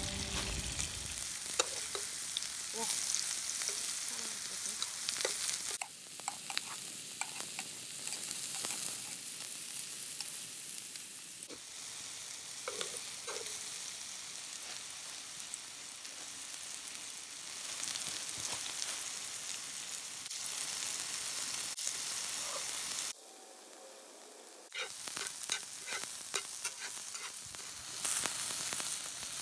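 Shrimp of the woods mushrooms frying in butter in a pan, a steady sizzle with scattered light clicks of stirring. The sizzle drops away for about two seconds near the end, then comes back.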